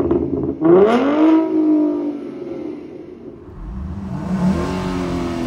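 2013–14 Ford Mustang's exhaust: one sharp rev about a second in, rising in pitch and falling back to idle. After a cut, the engine idles with a deeper rumble and a small rev, heard from inside the cabin with the mufflers on.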